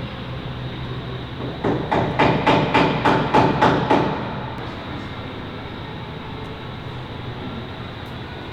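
A hammer striking about eight times in quick succession, about three blows a second, over a steady background hum.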